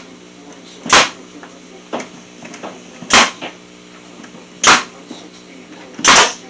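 Staple gun driving staples into wooden planter boards: four sharp shots, about one to one and a half seconds apart.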